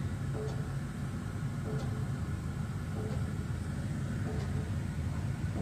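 Pile-driving rig working: a steady low machine rumble with faint, evenly spaced strikes about every 1.3 seconds.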